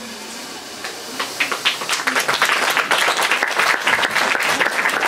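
Audience applauding. The clapping begins about a second in and quickly swells into loud, continuous applause.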